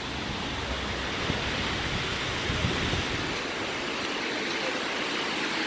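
Steady rushing of a waterfall pouring down onto the beach, a dense even hiss that grows slightly louder. A few faint low knocks in the first half.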